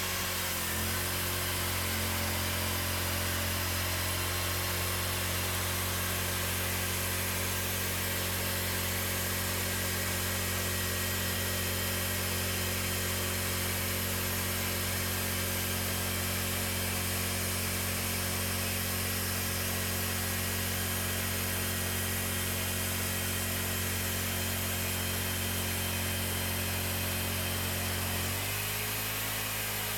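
Cooks 3238 hydraulic band sawmill running steadily under load as its blade cuts a slab from a cherry log; near the end the engine note rises as the load comes off the blade.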